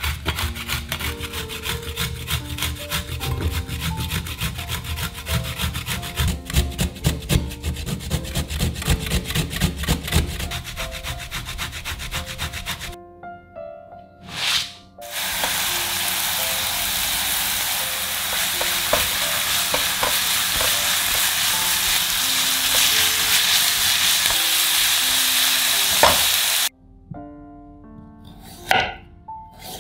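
Raw chicken breast rubbed on a metal box grater: fast rasping strokes for about the first thirteen seconds. After a short pause a steady hiss runs for about eleven seconds and cuts off suddenly. Near the end a kitchen knife slices a carrot on a wooden cutting board with a few sharp chops.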